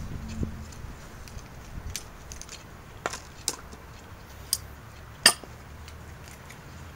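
A few scattered sharp clicks and light knocks, the loudest about five seconds in, over a faint low steady hum.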